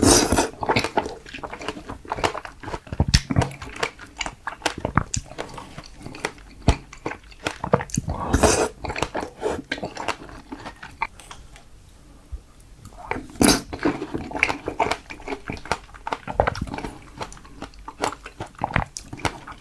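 Close-miked chewing of fresh strawberries: dense, irregular wet mouth clicks and crunches, with a few louder bites at the start, about eight seconds in and again around thirteen seconds, and a brief quieter pause between them.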